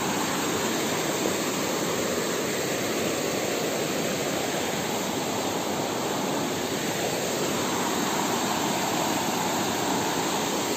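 Shallow stream rushing over rocks in small rapids: a steady, even rush of water.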